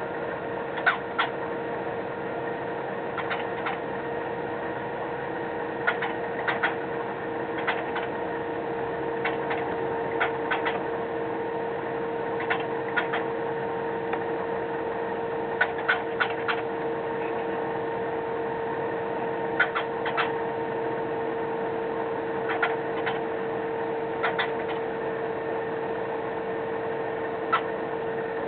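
Short sharp clicks and ticks from cockatiels, often in pairs or small clusters every second or two, over a steady electrical hum.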